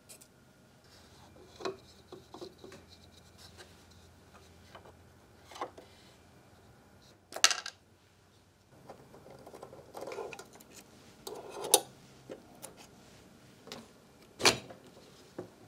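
Handling noises from taking apart a 3D printer's lower post bracket: light clicks, taps and rubbing of hard plastic and metal parts and a hex key, with a few sharper clicks about seven and a half, twelve and fourteen and a half seconds in.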